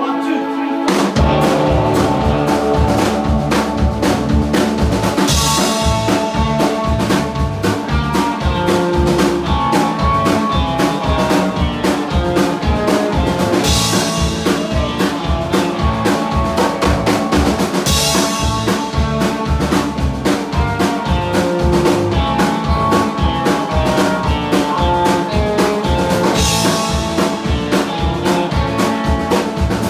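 Live rock band playing an instrumental: electric guitar carrying the tune over bass guitar and a drum kit. The drums and bass come in about a second in with a steady beat, and there are several crashes along the way.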